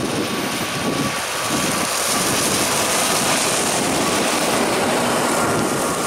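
Fendt 720 Vario tractor and its grain trailer driving past close by: a steady engine-and-tyre rush that swells as it passes, from about two seconds in, and eases off near the end.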